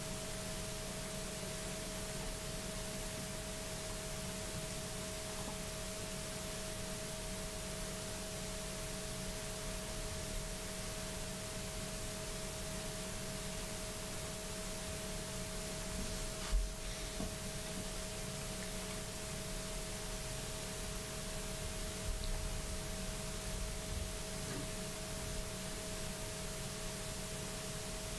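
Room tone: a steady hiss with a faint, even electrical hum. A single brief low bump comes a little past halfway through.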